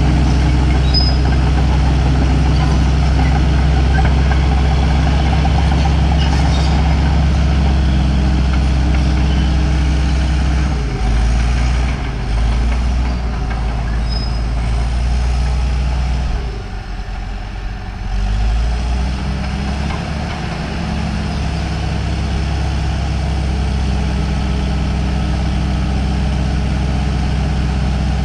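Caterpillar D4H crawler bulldozer's diesel engine running steadily under load as the dozer pushes a blade of earth. The engine sound dips for a couple of seconds about two-thirds of the way through, then picks back up.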